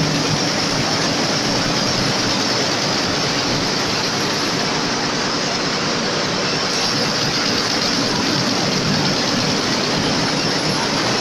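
Large industrial textile machine running: a loud, steady mechanical din that does not change.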